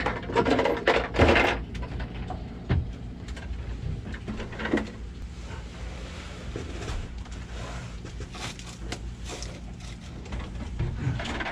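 Knocks, scrapes and rustling of a man climbing down into a cramped fiberglass stern locker, loudest in the first second and a half, with a steady low hum underneath.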